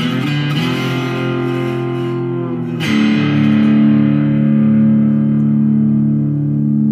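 Intro music on guitar: held chords, with a new chord struck about three seconds in and left ringing.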